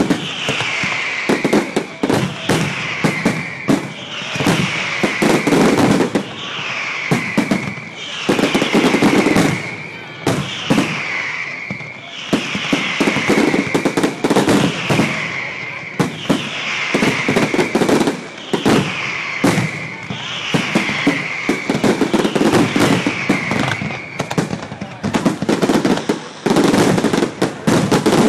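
Fireworks display: aerial shells bursting in quick succession with sharp bangs and crackling, over a repeated falling whistle about once a second. Near the end it becomes a dense, continuous barrage.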